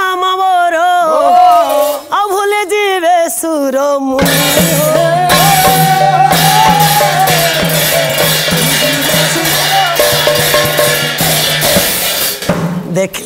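A female singer holds a wavering, ornamented melody. About four seconds in, the accompaniment bursts in loudly: drum and rattling, jingling percussion over a steady low drone, carrying on as an instrumental interlude.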